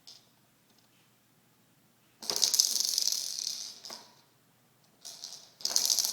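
Two sneezes about three seconds apart. Each is a sudden, loud, hissy burst of air lasting over a second, with a short, softer burst just before the second one.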